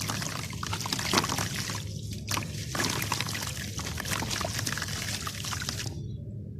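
Crunchy sand crumbling and pouring as a dense crackle of fine grains, breaking off suddenly about six seconds in.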